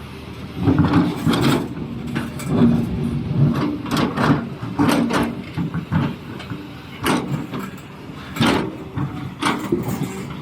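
Doosan DX390 excavator at work on rock: its diesel engine runs steadily while the bucket knocks and scrapes against stone again and again, with sharp cracks about a second in, around four to five seconds, and near seven, eight and a half and nine and a half seconds.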